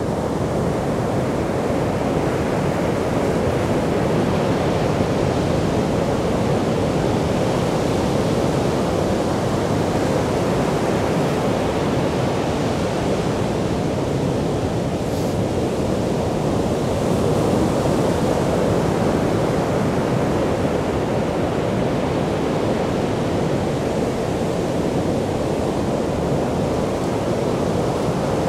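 Ocean surf breaking and washing up a beach: a steady rush of waves that swells and eases every few seconds.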